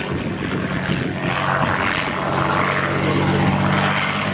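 Propeller-driven aircraft in flight, its piston engine giving a steady drone with a wash of noise that swells and fades as it passes.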